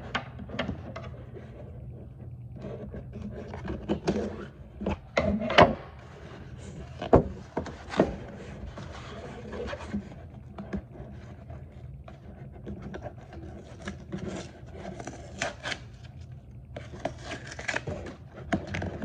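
A cardboard shipping box being handled and opened by hand: cardboard flaps and tape rubbing and scraping, with scattered sharp knocks, the loudest about five and a half and seven seconds in.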